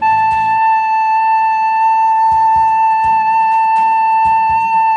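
Plastic soprano recorder sounding the note A (la), one long steady note held without wavering.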